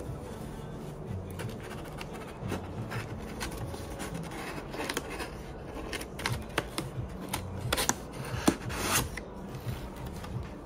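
Cardboard shipping box being opened by hand: flaps rubbing and scraping against each other, with a run of louder crackles and scrapes in the last few seconds as the flaps are pulled open.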